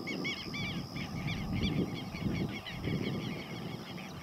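A flock of birds calling over and over in short, arched notes, with a steady high whine behind them and a low rumble that rises and falls.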